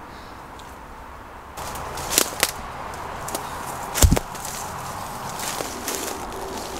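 Footsteps through undergrowth starting about a second and a half in, with sharp snaps of twigs and one heavy thump about four seconds in.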